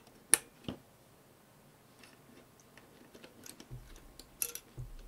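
Small glass cartridge fuses being pressed into metal fuse clips on a dimmer pack's circuit board: two sharp clicks in the first second, then scattered faint ticks and light knocks, with another click about four and a half seconds in.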